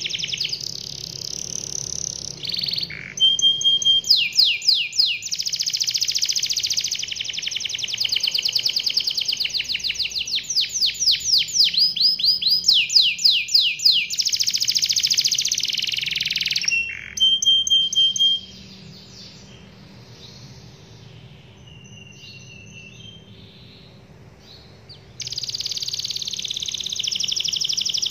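Domestic canary singing a long song of fast rolling trills and quick sweeping notes. The song breaks off about two-thirds through into a few seconds of faint, scattered notes, then rolls on again near the end.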